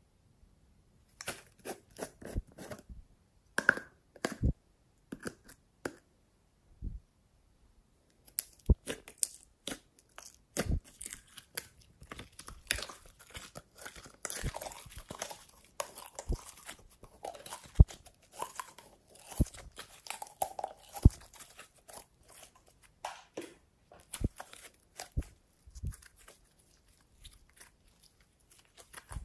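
Glossy pink glitter slime pulled from its plastic cup and squeezed and stretched by hand, giving irregular sticky pops and crackles. They are scattered at first and become nearly continuous from about eight seconds in.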